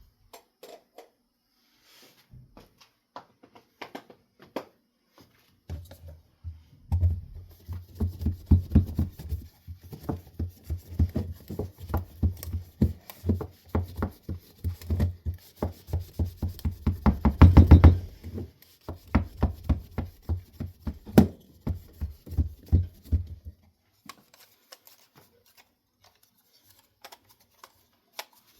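A long run of quick, irregular clicks and knocks from objects being handled, densest through the middle with a low rumble under them, thinning to scattered clicks near the end.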